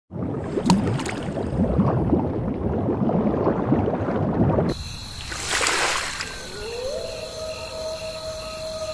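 Cartoon sound effects: underwater bubbling and gurgling for the first four and a half seconds, then an abrupt switch to a brief whoosh and a tone that slides up and then holds steady.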